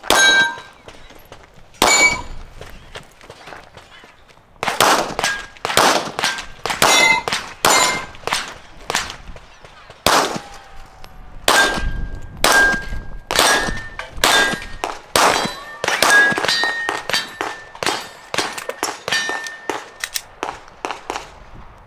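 Gunshots on a steel shooting course, each hit answered by the ring of a struck steel plate target. Two shots come near the start, then after a short pause a fast string of shots and ringing plates runs on through the rest.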